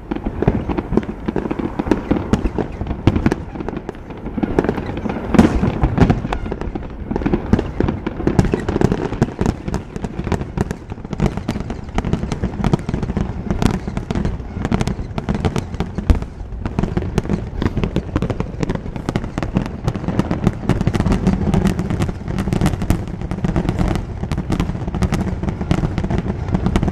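Aerial fireworks display: shells bursting in rapid succession, a continuous run of bangs and crackles over a low rumble.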